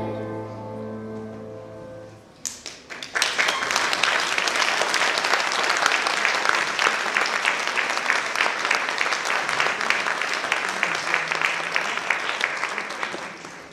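A children's choir's final held note fades out, then the audience applauds with dense, even clapping for about ten seconds before it dies away near the end.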